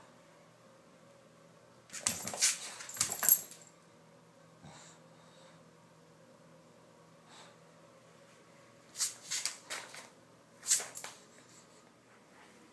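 Bulldog snorting and huffing through its nose in loud, noisy bursts: a cluster about two seconds in, then several more short ones around nine to eleven seconds.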